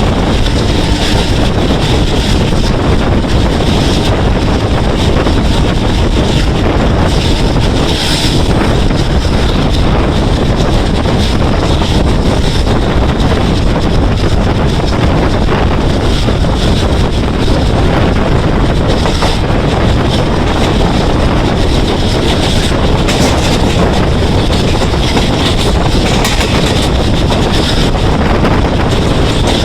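Steady wind rush and wheel-on-rail noise from a passenger train running at speed, with wind buffeting the microphone.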